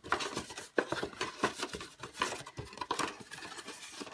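A sheet of laid cover-weight paper being bent back and forth along its fresh creases by hand to exercise the folds. It crackles and rustles in quick, irregular clicks.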